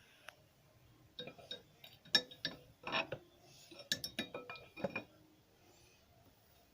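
Irregular series of light metallic clinks and taps, each with a short ring, about a dozen over four seconds.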